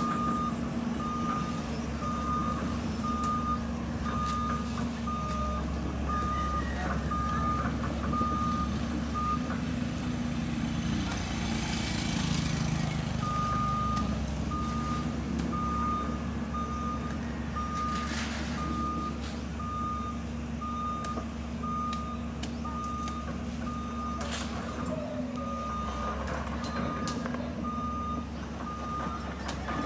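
JCB tracked excavator's travel alarm beeping at an even pace as the machine tracks along the road, over its diesel engine running steadily. The beeping stops for about four seconds partway through, then starts again.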